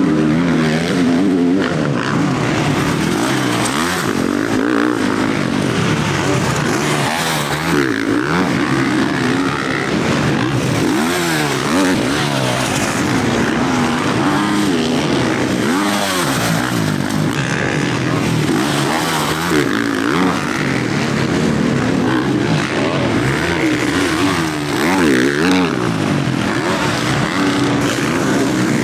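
Motocross bike engines revving on the track, their pitch rising and falling again and again as the riders accelerate, shift and back off, with more than one engine heard at once.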